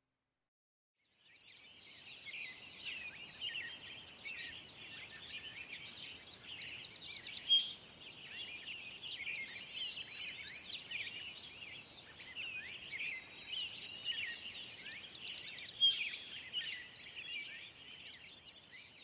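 A dense chorus of many birds chirping, whistling and trilling together, beginning about a second in after a brief silence.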